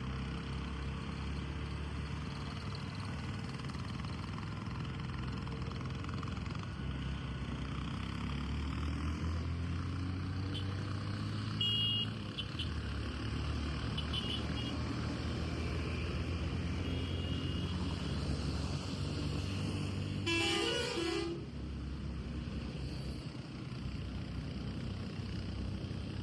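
Steady engine and road rumble of a moving vehicle, with a few short high beeps about twelve seconds in and one loud horn honk, under a second long, about twenty seconds in.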